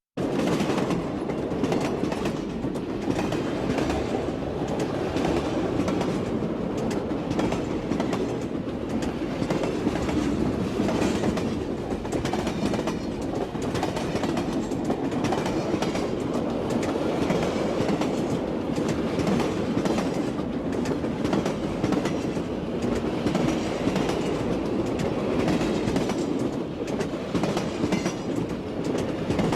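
Steady rumble of a train in motion heard from inside a passenger carriage, with wheels clicking over rail joints throughout.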